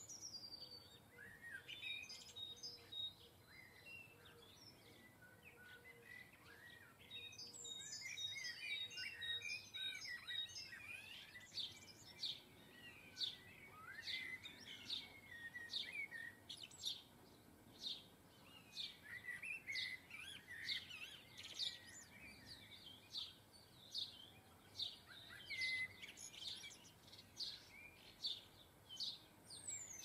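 Small garden birds chirping and twittering: many short, high calls in quick succession, getting busier about a third of the way in.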